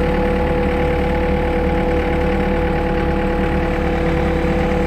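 Skid steer engine running steadily, heard from the operator's seat, with a steady whine over it as the machine creeps up onto the truck bed.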